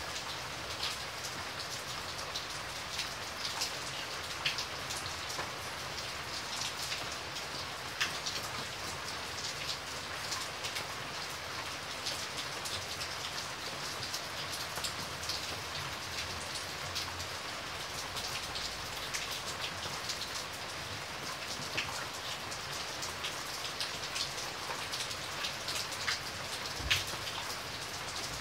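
Heavy rain falling steadily, with many single drops hitting close by as sharp little taps, and one louder tap near the end.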